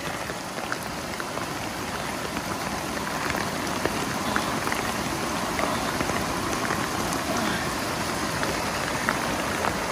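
Steady heavy rain falling together with fast-flowing floodwater rushing over a flooded dirt track, with scattered drops striking close by.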